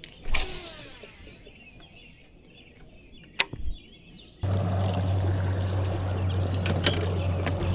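Water trickling and dripping beside a kayak, with a few sharp clicks. About halfway through a steady low rumble starts abruptly.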